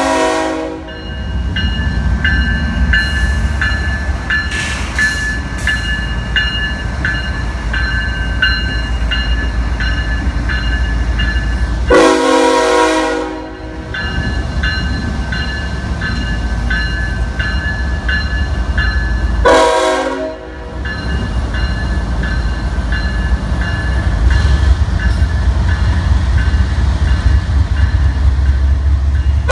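Diesel locomotives of a CSX freight train passing at close range with a steady deep engine rumble and an even clicking of the wheels on the rails. The locomotive horn sounds three times as a chord of several tones: a blast that ends about a second in, a longer one of about a second and a half near the middle, and a shorter one about two-thirds of the way through.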